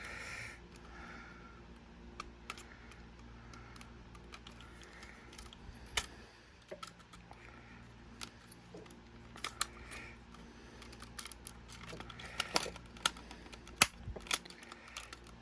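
Spudger prying at the clips of a Sony WM-FX28 Walkman's plastic casing: scattered small plastic clicks and taps, which come thicker and sharper near the end. A faint steady low hum sits underneath.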